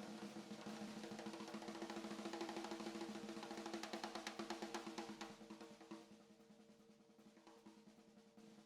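Rock music with a drum roll over a steady, faint hum from a CNC router carving wood.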